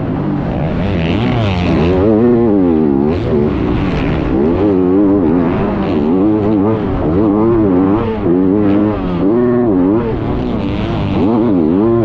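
A 250cc four-stroke motocross bike's engine, heard up close from the onboard camera, revving hard and falling back again and again as the throttle is worked through deep sand ruts. The pitch climbs and drops about once every second or two.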